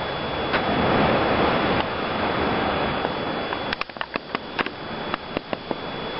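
Wind blowing through concrete roof tiles, heard inside the attic as a steady rushing noise that swells louder for a second or so near the start. About three and a half seconds in comes a quick run of about ten sharp clicks over two seconds.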